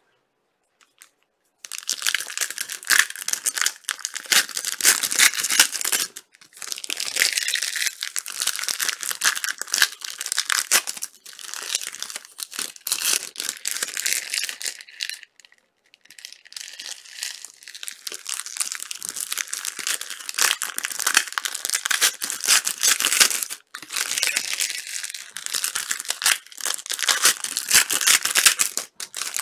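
Crinkly plastic wrapping being torn off trading-card boxes and crumpled by hand: a dense crackling that starts about two seconds in and stops briefly several times.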